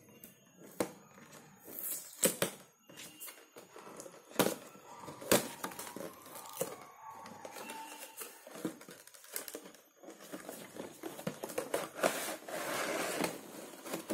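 Cardboard headphone packaging being handled: a box sleeve scraped off and an inner box opened, with irregular taps, knocks and clicks. About twelve seconds in comes a longer, louder crinkling as the headphones come out in their plastic tray.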